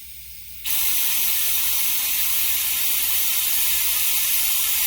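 Air-powered Mityvac vacuum pump running off shop compressed air, hissing steadily as it draws vacuum on hydraulic lifters submerged in oil to purge the air from them. The hiss starts abruptly under a second in after a brief pause.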